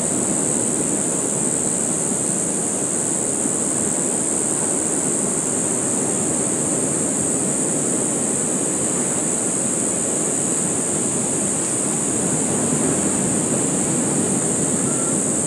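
Steady rush of surf and wind, unchanging throughout, with a constant high-pitched hiss over it.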